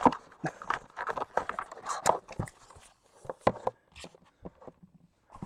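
Irregular clicks, taps and rustling from a trading-card box and its packaging being handled and opened, loudest in the first half.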